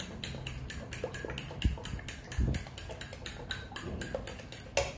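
Fork beating eggs in a ceramic bowl: quick, even clinks of metal on the bowl, about four to five strokes a second, stopping abruptly.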